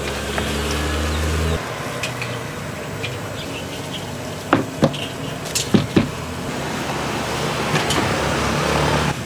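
Gloved hands tossing marinated chicken pieces in dry flour in a plastic tub, with a few sharp knocks about halfway through as coated pieces are set into a plastic basket. Under it runs a steady hiss and a low hum that stops about one and a half seconds in and returns near the end.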